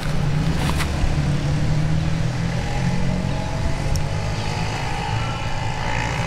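Steady low engine drone of a motor running.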